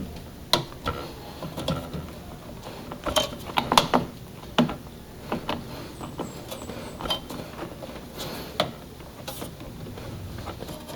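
Spring-loaded mounting screw of a CPU tower cooler being driven down with a screwdriver: irregular metal clicks, ticks and short scrapes as the screw threads in and the cooler's mounting bracket seats.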